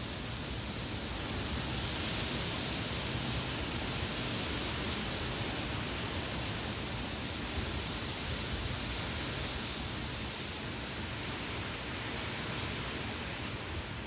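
Strong wind blowing through leafy trees and conifers: a steady rush of rustling foliage that swells a little a couple of seconds in and eases slightly toward the end.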